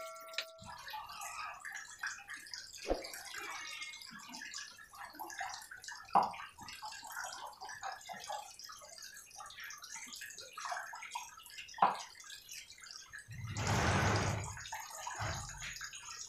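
Cleaver slicing beef tongue on a round wooden chopping block: soft irregular cutting and scraping sounds, with three sharp knocks of the blade on the wood. About fourteen seconds in, a louder rush of noise lasts about a second.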